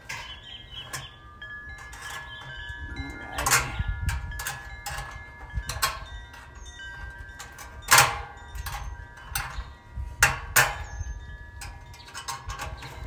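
Metal wind chimes ringing, with sustained tones and irregular clinks as they are knocked. Several sharper metallic clanks come through, the loudest about eight seconds in.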